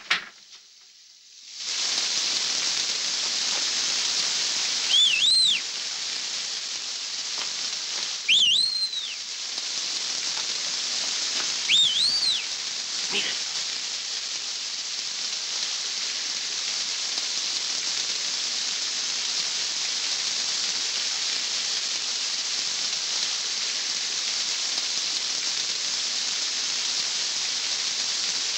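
Steady rain falling, a constant hiss. A second or two in it begins, and in the first half three pairs of short whistles rise and fall above it.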